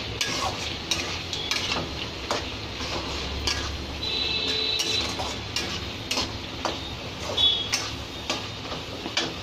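Metal spoon stirring a thick curry masala in a metal kadai, making repeated irregular clinks and scrapes against the pan, as freshly added red chilli powder is mixed into the chicken.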